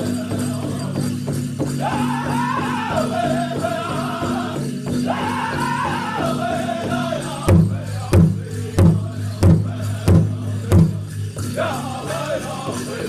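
Powwow drum group singing a song in high voices over a steady big drum, with the jingle of dancers' leg bells. About halfway through, the singing drops out and the drum plays six loud accented beats about two-thirds of a second apart, then the singing comes back in near the end.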